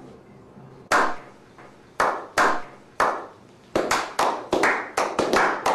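A slow clap: single hand claps about a second apart, quickening and overlapping into faster clapping from several people near the end.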